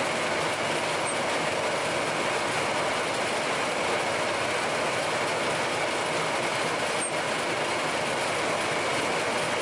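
SAFO DNAA 140 log-rounding machine running, a steady, even mechanical noise.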